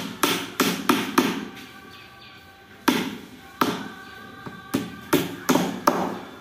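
Hammer driving small nails into the edge of a laminated-board drawer box. First comes a quick run of about five sharp strikes, then a pause of over a second, then about eight more strikes.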